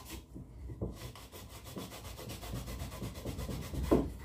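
Damp cloth rubbed back and forth over a glued wooden board, wiping off excess glue in quick, even strokes. A louder knock comes near the end.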